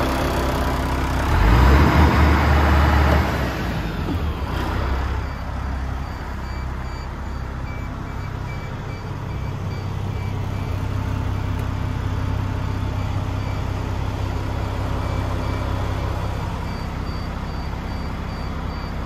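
Paccar MX 460 six-cylinder diesel of a DAF XF105 truck idling steadily at standstill, heard from inside the cab. A louder burst of handling noise comes about a second in, and a faint, intermittent high-pitched beeping runs through the later part.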